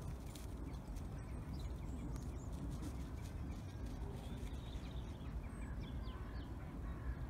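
Small birds chirping, short calls repeated from about three seconds in, over a low steady rumble of wind on the microphone.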